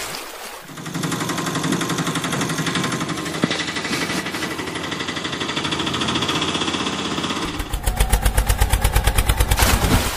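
Engine sound running with a fast, even rattle; about seven and a half seconds in it changes to a louder, heavier pulsing of about six beats a second.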